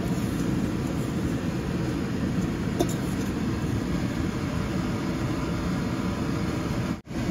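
Steady low rumbling background noise, like a fan or burner running, with a single light click about three seconds in. It cuts out for a moment near the end.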